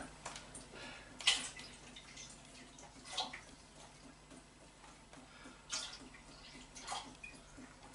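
Water poured from a plastic jug into a stainless steel pressure cooker pot, heard as a few short, faint splashes spread over several seconds.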